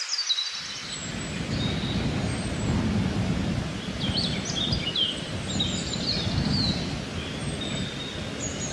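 Outdoor ambience: a steady low rumble of noise starting about half a second in, with scattered high bird chirps through the middle.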